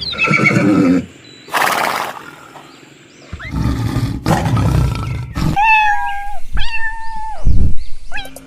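A run of animal calls: rough, noisy calls at the start and through the middle, then two pitched calls, each held at a steady pitch for under a second, near the end.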